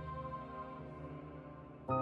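Slow instrumental music of long held chords that soften, then a fuller chord comes in sharply near the end.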